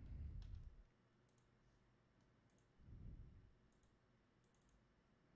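Near silence with a few faint computer mouse clicks, and two brief soft low thumps, one at the start and one about three seconds in.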